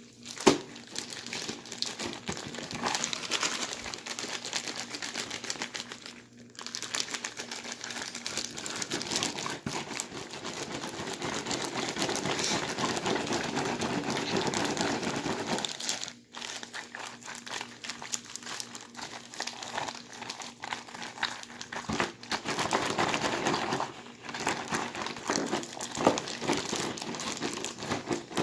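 Plastic bags holding ice, salt and a sealed bag of drink crinkling continuously as they are shaken and worked by hand to freeze the drink into slush, with a single sharp click about half a second in.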